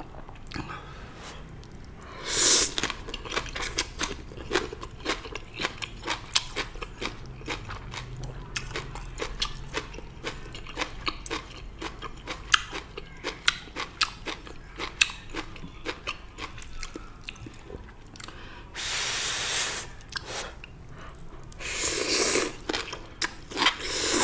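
Close-miked chewing and crunching of stir-fried morning glory (water spinach): a steady run of crisp little crunches, with a louder bite a couple of seconds in. Near the end come two longer rushing noises, each lasting about a second.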